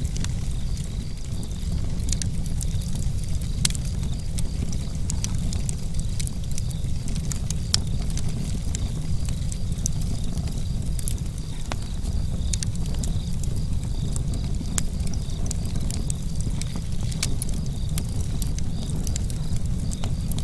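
Campfire crackling, with frequent sharp irregular pops over a low steady rumble. Crickets chirp steadily in the background as a faint high pulsing.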